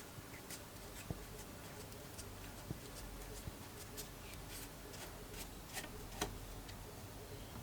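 Scattered light clicks and taps, a dozen or so at uneven intervals, over a faint steady low hum.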